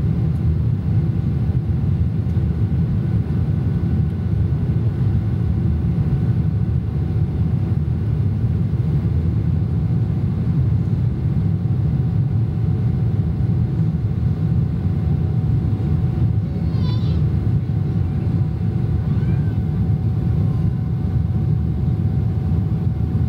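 Steady low engine drone, even in level throughout, with a faint steady hum tone above the rumble.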